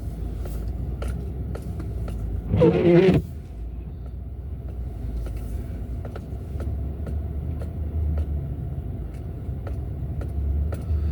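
Car running at low speed, heard from inside the cabin: a steady low engine and road rumble as it pulls onto an icy driveway. Faint regular clicks come about twice a second, and a short loud burst stands out about two and a half seconds in.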